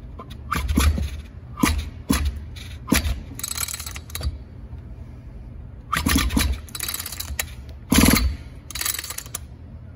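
Recoil starter rope of an Echo PE-280 power edger's two-stroke engine being yanked again and again, in short scraping rasps with a pause near the middle. The engine, spark plug out, is seized and barely turns, and it acts as if it has compression.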